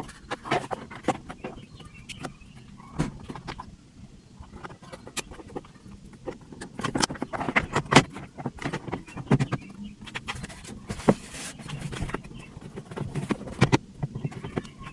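Irregular plastic clicks and knocks of car interior trim being handled and pushed back into place in the dashboard.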